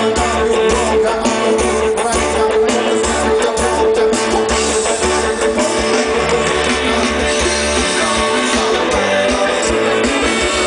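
Live band music, loud and amplified: guitars over bass and drums keeping a steady beat.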